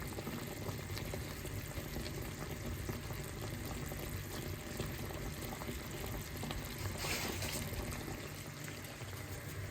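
Lamb shanks in stock bubbling steadily in a pot, with a slightly louder hiss about seven seconds in.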